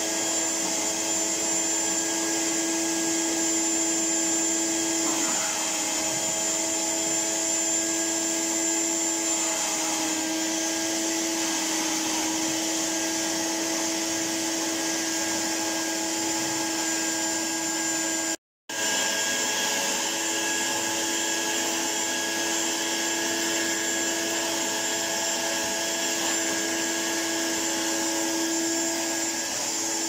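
1984 Hoover Compact S3196 cylinder vacuum cleaner running steadily while its floor tool is pushed over carpet: a constant motor whine with a strong hum under it. The sound cuts out for an instant about two-thirds of the way through, then carries on unchanged.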